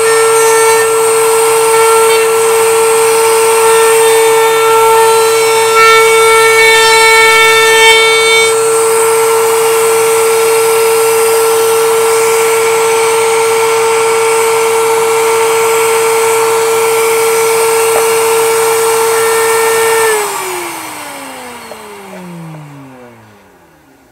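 Router in a router table running with a high, steady whine, a 3/16-inch round-over bit cutting the edge of a pine trivet for the first eight seconds or so, then spinning free. About 20 seconds in it is switched off and the whine falls in pitch as the motor spins down.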